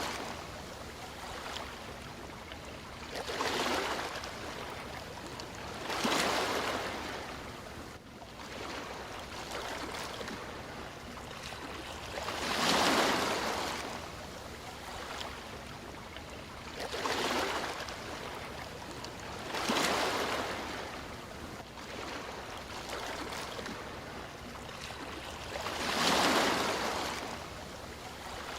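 Sea waves breaking on a shore, six surges of surf that each swell up and wash back over a steady hiss of moving water.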